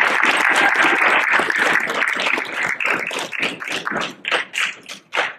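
Audience applause, dense at first, then thinning to a few scattered claps and dying away near the end.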